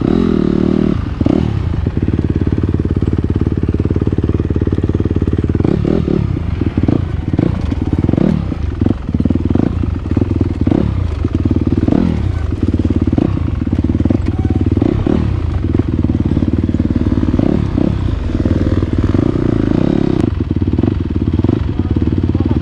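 Dirt bike engine running steadily under way on rough trail, with a heavy low rumble on the bike-mounted GoPro. From about six seconds in come frequent short knocks and clatters.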